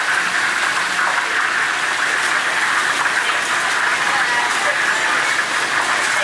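Chicken deep-frying in a pot of hot oil, a steady loud sizzle.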